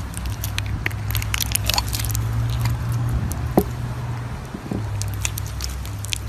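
Crunchy slime being squeezed and kneaded: many small crackles and pops over a soft squish. A steady low hum runs underneath.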